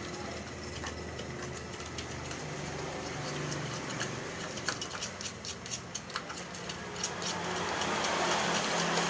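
Homemade slime being stirred and squished, giving a run of small sticky clicks that is thickest around the middle. A steady low hum runs underneath, and a hiss swells near the end.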